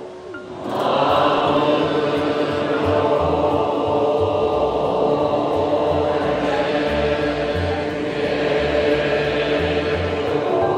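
Nichiren Shu Buddhist priests chanting in unison, a dense, sustained drone of many voices that comes in strongly just under a second in.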